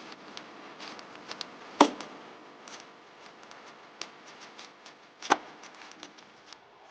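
Scattered light clicks and taps from handling tools or parts during work on a car, with two sharper knocks about three and a half seconds apart.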